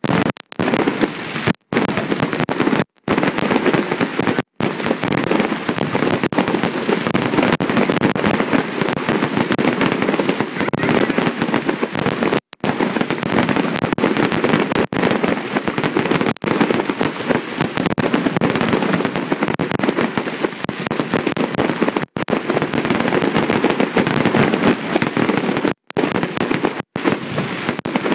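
Main firework display in full barrage: a dense, continuous wall of shell bursts with no gaps between them. The recording cuts out for an instant several times.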